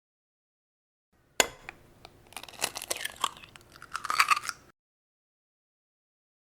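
An egg cracked: one sharp knock of the shell against a hard edge, then a couple of seconds of small crackles and clicks as the shell breaks open, stopping abruptly.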